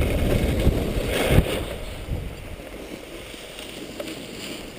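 Wind buffeting the microphone of a camera worn by a skier, with the hiss and scrape of skis sliding on packed snow, loudest in the first second and a half, then quieter.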